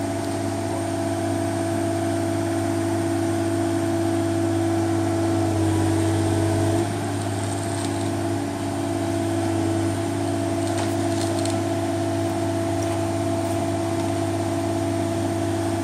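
Mini excavator's diesel engine running steadily with a constant hum, its pitch and level dropping slightly about seven seconds in.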